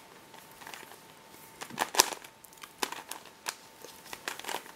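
Plastic pieces of a three-layer pentahedron twisty puzzle clicking and clacking as its layers are turned by hand: a string of irregular clicks, the sharpest about two seconds in.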